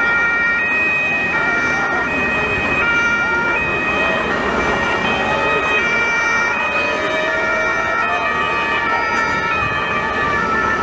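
Two-tone police sirens, several sounding at once, each switching between a high and a low note about every three quarters of a second, over a steady rushing noise.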